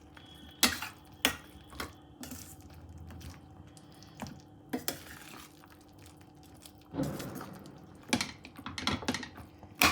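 A spoon stirring chicken pieces into thick masala in a cooking pan, with scattered clinks and knocks of the spoon against the pan.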